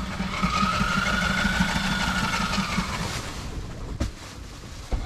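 Industrial sewing machine running as it stitches sail cloth: a fast low rattle with a motor whine that rises and falls for about three seconds, then it stops, with a click about four seconds in and another near the end.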